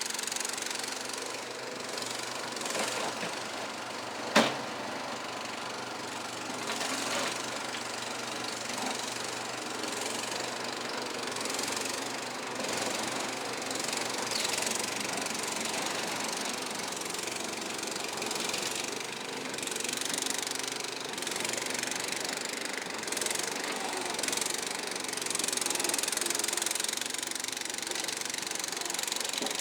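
Kohler engine of a Struck Magnatrac Junior mini bulldozer running steadily. A single sharp clank about four seconds in is the loudest sound.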